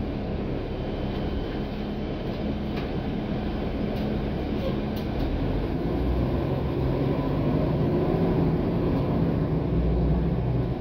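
Cabin noise inside a NABI 416 transit bus: the steady drone of the engine and running gear with road noise, growing louder about halfway through.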